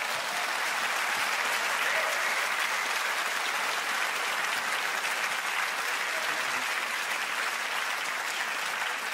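Audience applauding, a steady round of clapping that holds throughout.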